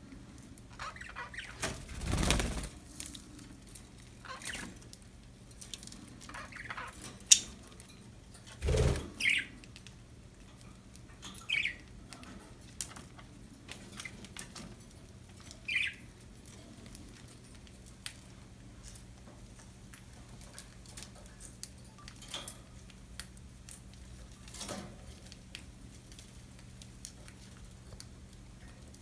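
Budgies moving about a cage, with scattered small clicks and scratches and a few short, isolated chirps. Two louder dull thumps come about two seconds in and again near nine seconds.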